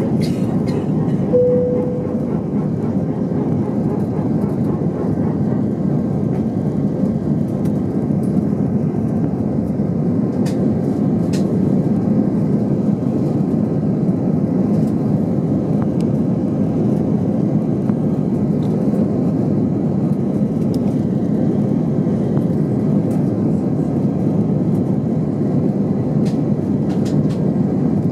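Steady rumble of an Airbus A319's engines and airframe heard from inside the cabin, with a short tone about a second and a half in and a few faint clicks.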